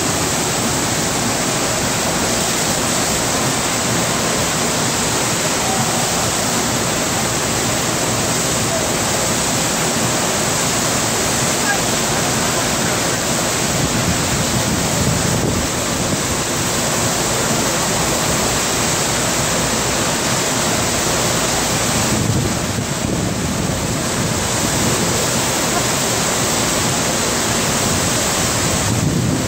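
Steady, loud rush of the FlowRider surf simulator's pumped sheet of water streaming up the ride surface under a bodyboarder.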